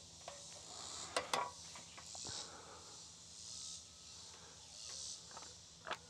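Insects calling in a high, hissing chorus that swells and fades every second or two. A few light clicks and knocks about a second in and again near the end.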